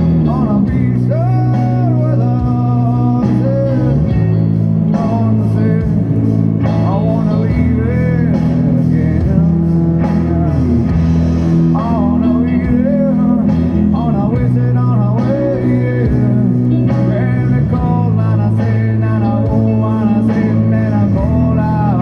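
Rock music with guitar and a singing voice, playing steadily over sustained bass notes.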